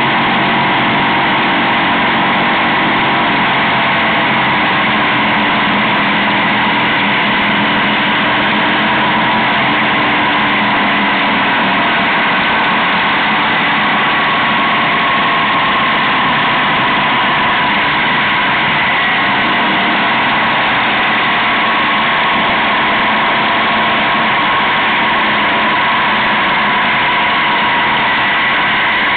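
Motorcycle engine running steadily while riding at low road speed, mixed with constant wind and road rush over the bike-mounted camera.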